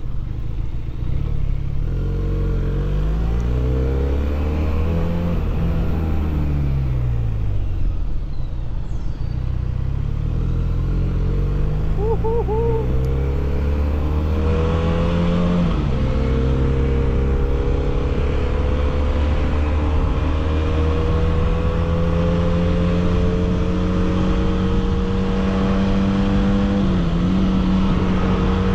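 A 300 cc motorcycle engine breathing through an aftermarket 302s exhaust, heard on board while riding. In the first half the engine note repeatedly rises and falls through gear changes, with a sudden drop about halfway through. Then it settles into a steady, slowly climbing note while cruising, with a brief dip near the end.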